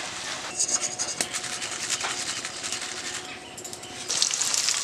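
Crisp fried raw-banana chips crackling as they are crushed in the hand, a few sharp cracks. About four seconds in, hot oil in a wok starts sizzling loudly as banana slices fry.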